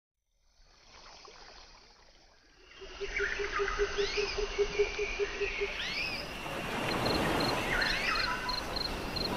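Animal calls: chirps sweeping up and down, joined for a few seconds by a low pulsing call about five times a second, over a steady noisy background that grows louder about three seconds in and cuts off suddenly at the end.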